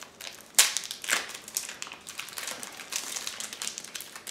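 Clear plastic wrapping crinkling and crackling as it is pulled off a wooden comb: irregular crackles, the sharpest about half a second and a second in.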